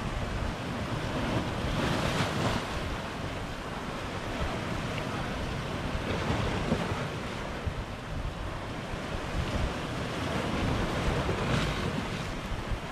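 Sea surf breaking and washing against a rocky shore, with wind buffeting the microphone; the wash swells about two seconds in and again near the end.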